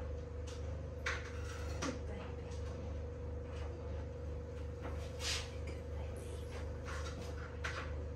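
Several short scrapes and rustles of food being handled and prepared at a kitchen worktop, about five in all, over a steady low hum and a faint steady tone.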